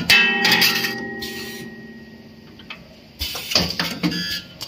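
Rotary-table resistance welding machine working, with sharp metallic clanks and clicks from its pneumatic heads and indexing table. A loud clank at the start is followed by a ringing tone that fades over about three seconds. The clatter resumes a little past the three-second mark.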